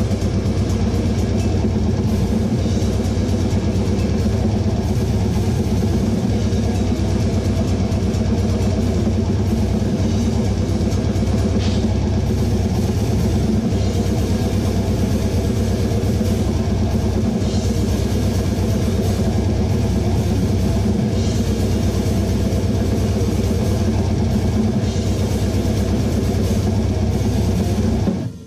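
Death metal drumming on a full kit at 260 beats per minute: rapid steady kick drum, snare and china cymbals, played together with the band's guitars and bass and picked up on the camera's own microphone. The music breaks off abruptly for a moment near the end.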